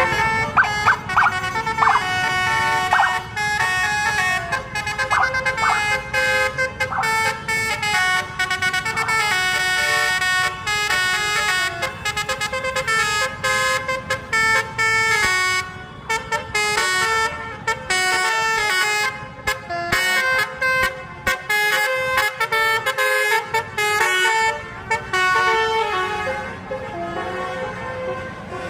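Basuri musical bus horn playing a fast telolet melody of short stepped notes, starting with a few separate short blasts, over a low rumble of engine and traffic.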